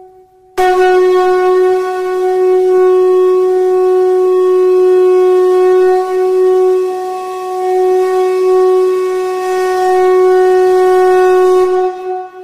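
A long, steady horn-like note held at one pitch with a rich stack of overtones. It starts abruptly about half a second in, wavers once in the middle and stops shortly before the end.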